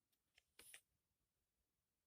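Near silence, with one faint tick and a brief soft rustle in the first second.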